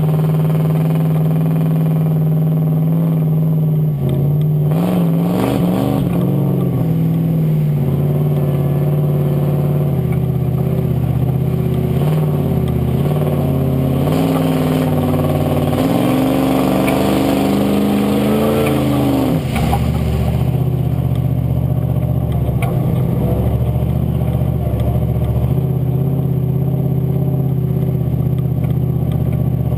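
Off-road buggy's engine running under load along a muddy trail. Its revs rise briefly about four seconds in, then climb for several seconds in the second half and drop back as it pushes through water-filled ruts, with a rush of water and mud under the wheels.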